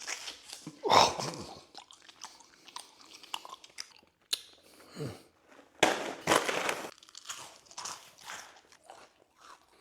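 Close-miked chewing and crunching of food, with irregular crisp bites, the loudest about a second in and a longer crunchy stretch around six seconds in.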